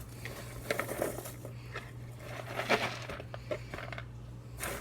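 Popped popcorn rustling and shifting inside a plastic microwave rice cooker as it is handled and turned, with scattered light clicks of kernels against the plastic.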